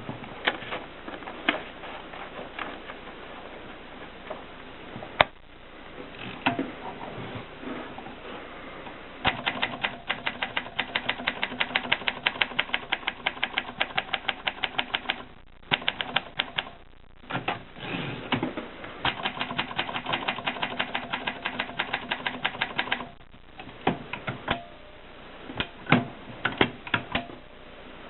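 Groma typewriter being typed on: a few scattered key strikes, then two long runs of fast, even keystrokes with a short pause between them, then a few more strikes near the end.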